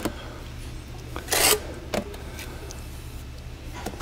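Trowel scraping and smoothing mortar onto the back of a veneer stone: a few short rasping strokes with light clicks, the loudest about a second and a half in.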